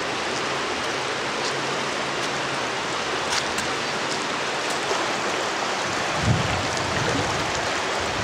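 Steady hiss of creek water flowing over and below a concrete dam, with some low rumbling near the end.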